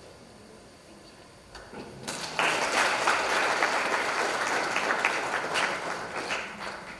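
Audience applauding: the clapping starts about two seconds in and dies away near the end.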